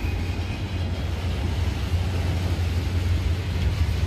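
Goods train of open freight wagons rolling past on the track below, a steady low rumble.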